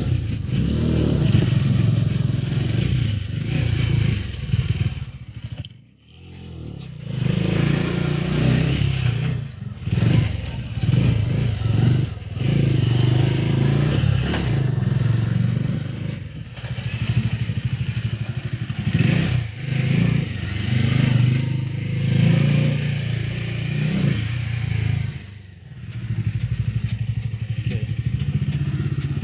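Bajaj Dominar 400's single-cylinder engine running as the motorcycle is ridden at low speed, the throttle opening and closing. The sound dips sharply about six seconds in and more lightly again later.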